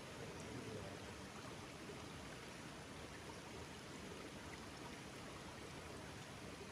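Faint, steady rush of a rocky stream flowing.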